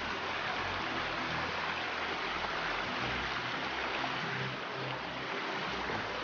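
Steady rushing of flowing water, a mountain stream or waterfall.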